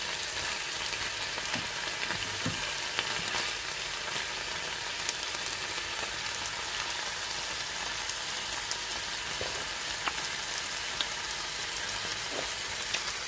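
Stir-fry sizzling steadily in a non-stick pan, with occasional short scrapes and taps of a wooden spatula as the food is turned.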